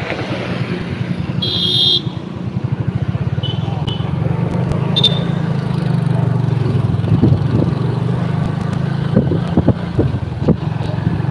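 Motorbike ride: the bike running at road speed, with wind rumbling on the phone microphone and traffic going by. A few short high beeps sound in the first five seconds.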